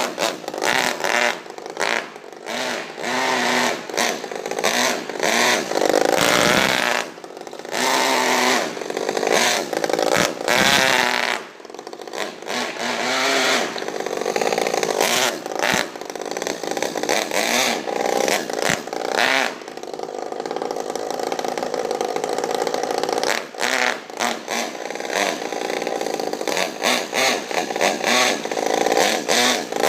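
Modified Saito FA-50 four-stroke glow engine in an RC car, revving up and down over and over as the car is driven, with short drops in level when the throttle is closed. Its two-speed transmission is not shifting, so the engine keeps winding up in the one gear.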